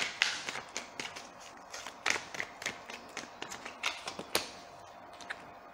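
A deck of tarot cards being shuffled by hand: quick, irregular slaps and flicks of cards against each other, dying away about four and a half seconds in.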